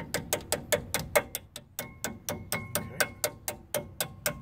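Rapid, even metal-on-metal hammer taps on a punch, about six a second, driving a caliper retaining pin into a front disc-brake caliper. A faint ringing tone joins in about two seconds in.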